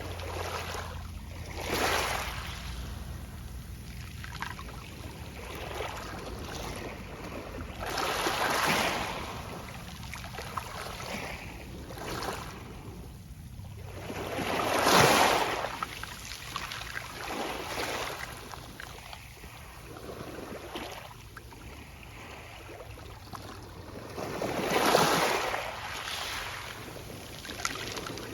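Small sea waves breaking on a pebble beach, each wash rising and falling over a second or two with the pebbles rattling as the water runs in and out; larger breaks come about every six seconds, the biggest about halfway through.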